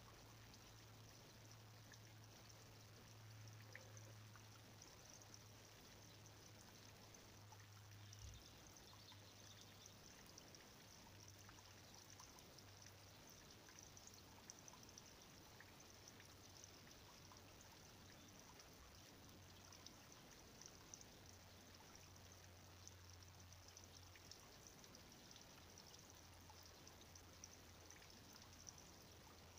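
Near silence: a faint steady hiss with a low hum and the odd faint tick.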